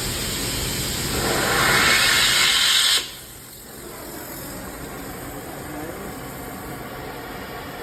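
Oxy-acetylene cutting torch hissing: a loud rushing hiss builds for about two seconds, cuts off suddenly about three seconds in, and leaves a quieter steady hiss from the torch.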